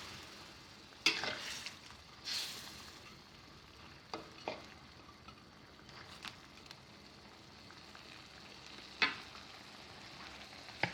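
Shrimp with garlic and chilies frying in a pan, a steady sizzle, with a spatula knocking and scraping against the pan several times as the food is stirred.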